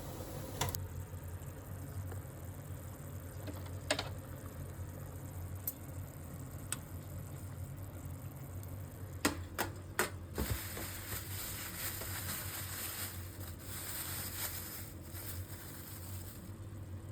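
Quiet kitchen sounds: a few light clicks and knocks of utensils over a steady low hum, with a faint hiss in the second half.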